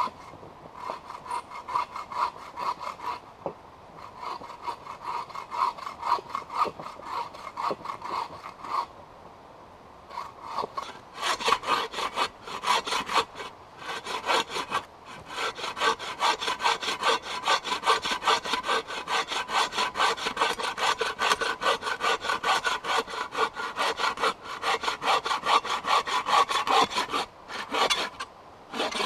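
Hand saw cutting through a split firewood log in steady back-and-forth strokes, with a short pause about a third of the way in and another near the end.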